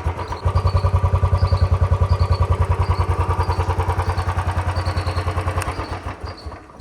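Royal Enfield Bullet 350's single-cylinder engine idling with an even, steady beat and no tick: the sound is stock after a new piston ring kit. Near the end the beats slow and fade out as the engine stops.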